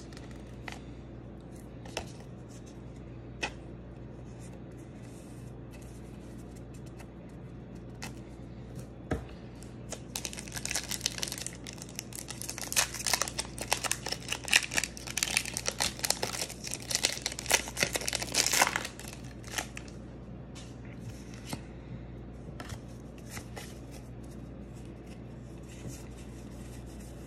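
A foil Pokémon Obsidian Flames booster pack being torn open and crinkled: a dense crackling from about ten seconds in to about nineteen. Before and after it come scattered light clicks and rustles of cards and card sleeves being handled.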